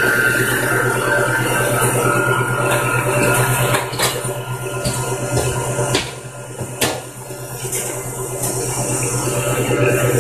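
Cuisinart stand mixer running steadily, its beater churning a cheesecake batter of cream cheese, heavy cream and rum in a stainless steel bowl. A few sharp clicks come around the middle, and the sound dips briefly near the end.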